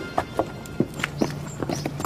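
Footsteps on concrete stairs: a quick, irregular series of sharp steps, several a second, over quiet background music.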